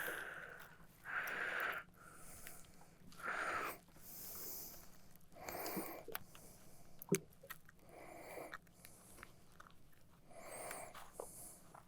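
A person breathing audibly, one breathy breath about every two seconds, with a few small clicks and handling noises.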